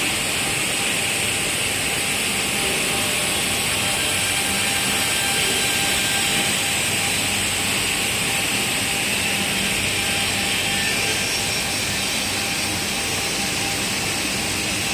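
Steady din of woodworking factory machinery and dust extraction running: a continuous hiss with a few faint steady tones underneath and no distinct strokes or pauses.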